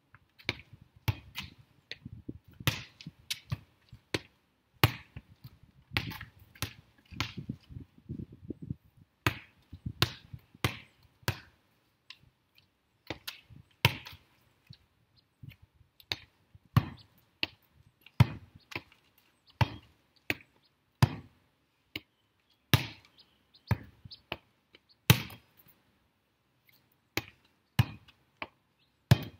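A volleyball being struck again and again by hands and forearms as it is set and passed, a sharp slap about every second, with a few short pauses.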